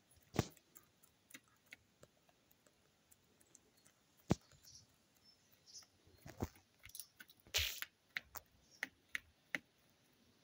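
A hen's beak pecking oats from a plastic feeder tray: irregular sharp taps and clicks, coming more often in the second half.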